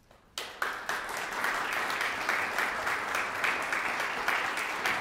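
Audience applauding. The clapping starts suddenly about half a second in and keeps up steadily.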